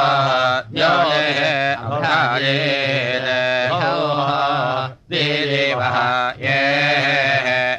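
Samaveda gana of the Kauthuma shakha being chanted: long, drawn-out sung syllables with wavering, sliding pitch. Brief pauses come about a second in and near five seconds in.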